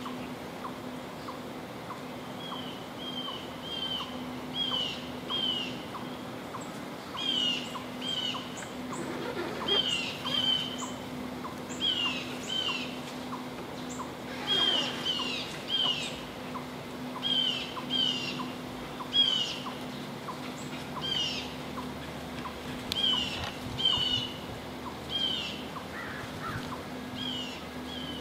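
Songbirds calling: short, sharp chirps, often two in quick succession, repeating every second or so over a steady low hum.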